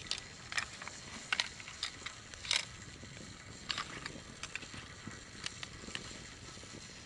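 Firewood crackling and popping in a wood-burning stove: irregular sharp snaps, a few of them longer, over a low steady background.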